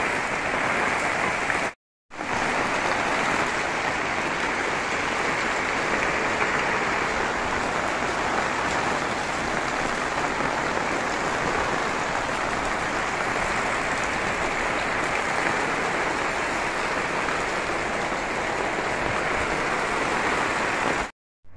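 Heavy rain falling steadily on a concrete yard, with roof runoff pouring and splashing onto the wet ground. It is a dense, even hiss that drops out briefly about two seconds in.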